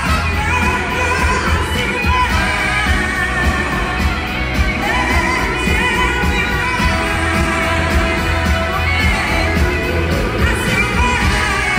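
Live rock band playing, with drums, bass and electric guitar under a woman's lead vocal, recorded from the audience in a large hall.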